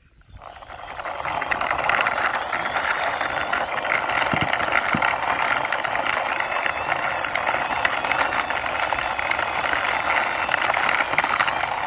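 Toy trailer truck pushed along by hand, its wheels rolling and rattling steadily; the noise builds over the first couple of seconds and then holds steady.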